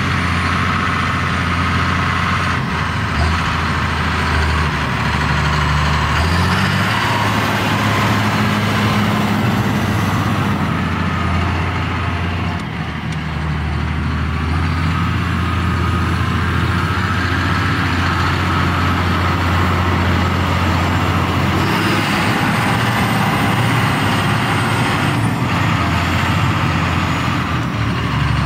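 Claas Axion 850 tractor's six-cylinder diesel engine running as the tractor drives across a field, its note rising and falling a few times, with a thin high whine riding above it.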